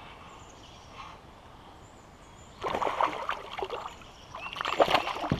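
Water splashing in two bursts, about two and a half seconds in and again near the end: a hooked bass thrashing at the surface.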